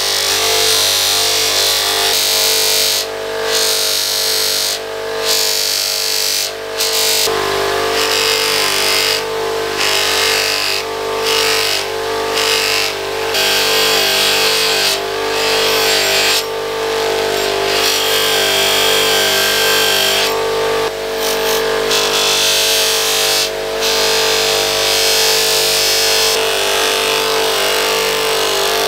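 Bench polisher running with a cloth buffing wheel: a steady motor hum under the hiss of small metal parts being pressed against the spinning wheel. The hiss breaks off briefly every second or two as the part is lifted from the wheel.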